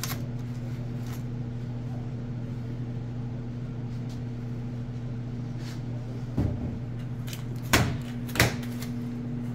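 A steady low electrical hum, with a few sharp knocks on a stainless steel counter about six to eight and a half seconds in, as a glass measuring jug is set down and a foil tray is handled.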